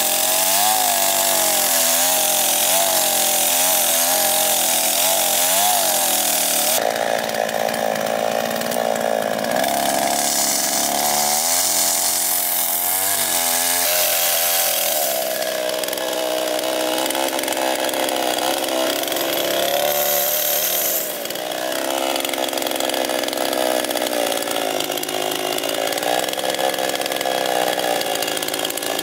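Two-stroke chainsaw running at high revs and cutting wood, its pitch wavering and dipping as the chain loads in the cut. The sound changes abruptly a few times, as between separate cuts.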